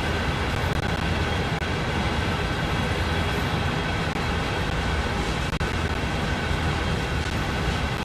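CSX freight train running, a steady low rumble with a faint steady high tone above it.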